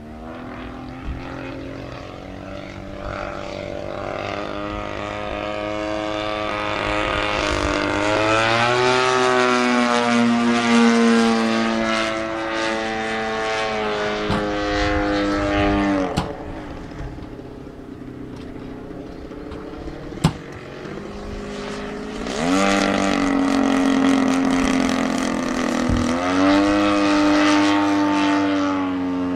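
Gas engine of a 50cc EF Extra 300 radio-controlled aerobatic plane flying overhead, its propeller note rising and falling in pitch and loudness with throttle and passes. It drops sharply about sixteen seconds in, runs quieter for a few seconds and climbs back up about twenty-two seconds in. There is one brief sharp click about twenty seconds in.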